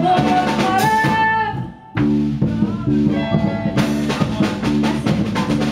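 Live music on a small acoustic guitar, chords strummed in a steady rhythm. The playing stops abruptly for a moment about two seconds in, then picks up again.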